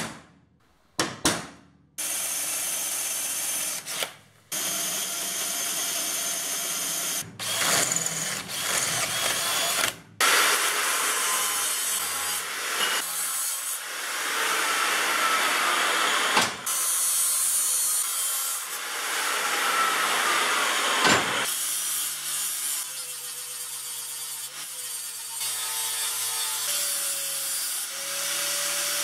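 Two sharp knocks, then a handheld electric drill boring through steel in several runs, broken off by short gaps. Near the end an angle grinder runs against the steel tube.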